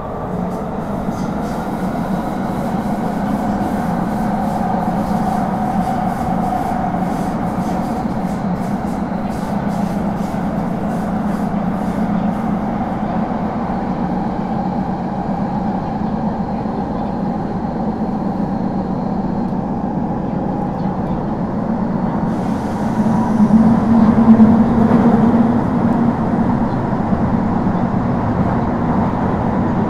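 Kyoto Municipal Subway Series 50 train running, heard from inside the car: steady wheel and rail noise with a faint tone from its Mitsubishi GTO-VVVF traction control, and a run of light ticks over the first dozen seconds. About 23 seconds in it gets louder, with an added hiss.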